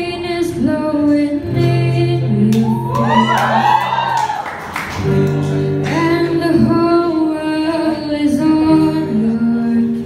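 A woman singing a slow ballad to her own acoustic guitar accompaniment, the guitar chords ringing under the voice. In the middle she holds one long note with a wavering vibrato.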